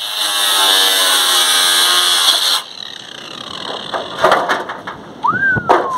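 Angle grinder with a thin cutting disc cutting through corrugated steel sheet: a loud, high, steady grinding whine that stops abruptly about two and a half seconds in. Quieter knocks and scraping of the sheet follow.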